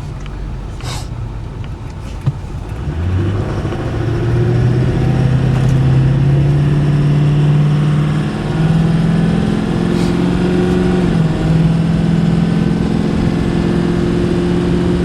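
Engine of a 2010 Ford F-450, a 6.4-litre Power Stroke turbo-diesel V8, heard from inside the cab as the truck pulls away. The engine note rises as it accelerates and drops back twice, about eight and eleven seconds in, as the automatic transmission upshifts, then settles into a steady drone at cruising speed.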